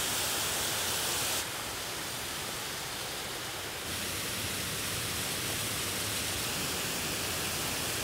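Small woodland waterfall, running full with winter water, giving a steady rushing noise. The rush drops a little about a second and a half in and comes back up slightly about four seconds in.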